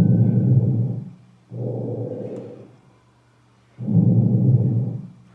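Normal vesicular breath sounds heard through a stethoscope over the front of the chest. There are two breath cycles, each a louder, low rushing breath followed by a softer one.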